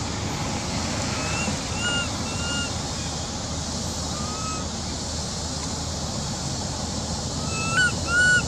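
Short, high, arching coo calls of a baby long-tailed macaque, a few spaced out early on and two louder ones near the end, over a steady background hiss.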